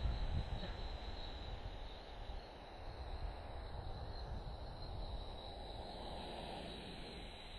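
Steady insect chorus: a continuous high, even trill, over a low rumbling background.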